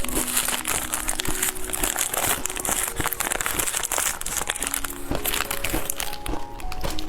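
Crinkling and rustling of a plastic candy wrapper, with many sharp clicks, easing off about two-thirds of the way through. Light background music with plinking notes plays throughout.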